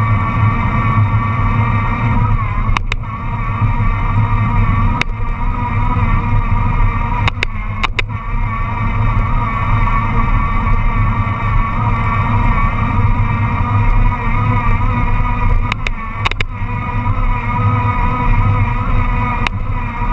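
Wind buffeting and road rumble on a moving bicycle's camera microphone, with a steady wavering whine and a handful of sharp clicks and knocks as the bike rides over the road surface.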